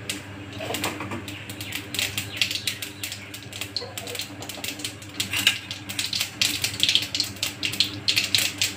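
Tempering crackling in hot oil in an aluminium kadai: rapid, irregular pops and spits that grow thicker through the second half.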